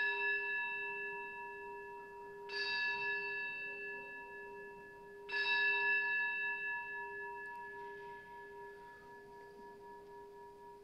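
An altar bell struck three times, about three seconds apart, each stroke ringing on with a clear tone and slowly fading. It is rung at the elevation of the chalice after the consecration.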